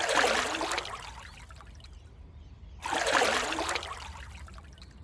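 Water splashing twice, about three seconds apart, each splash trailing off in trickling water.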